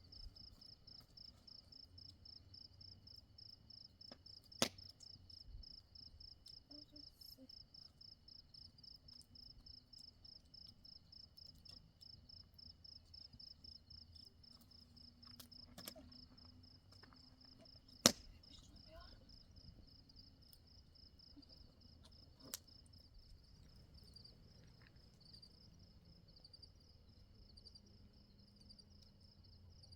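Crickets chirping in a steady, fast pulsing trill, with four sharp clicks or knocks over it; the loudest comes about eighteen seconds in.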